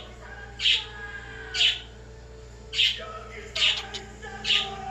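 Pet bird giving about five short, sharp chirps, roughly one a second, over a fainter television soundtrack.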